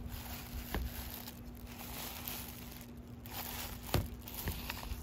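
Crumpled paper lining a bowl crinkling and rustling as eggs are handled and nestled into it, with a few light knocks, the sharpest about four seconds in.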